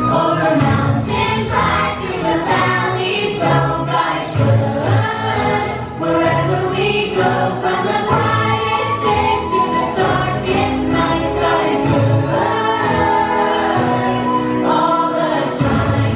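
Children's choir singing a song in unison over instrumental accompaniment with a steady bass line.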